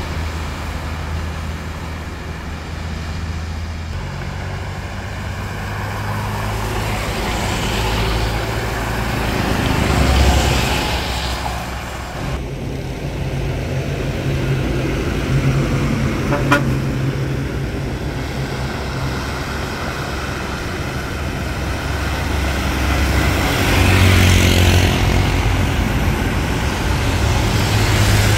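Heavy trucks driving past on a wet road: a steady low diesel engine drone, with the hiss of tyres on wet asphalt swelling as vehicles go by. The passes are loudest about ten seconds in and again near the end. A brief sharp sound comes a little past halfway.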